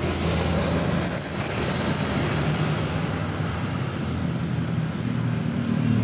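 Motor vehicle engine running steadily with a low hum, growing a little louder near the end.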